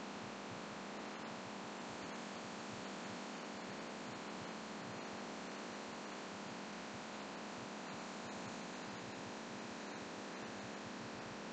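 Steady rushing hum of a laminar flow hood's blower pushing filtered air, with faint small clicks now and then.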